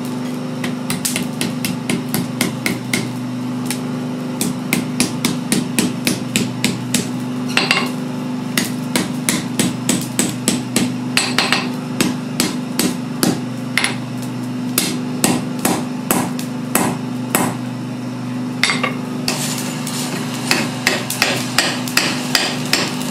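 Blacksmith's hand hammer striking a red-hot steel arrowhead held in tongs on an anvil: a long run of blows, roughly two to three a second, with a short break about three-quarters of the way through. A steady low hum runs underneath.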